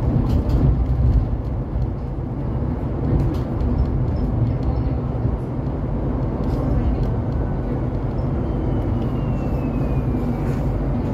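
Interior ride noise of a Solaris Trollino 12 IV trolleybus under way: a steady low rumble of the running gear and road. A faint high whine falls in pitch over the last few seconds.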